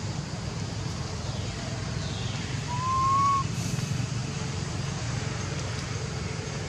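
Steady low rumble, with one short whistle-like call about three seconds in, held for under a second and rising slightly in pitch.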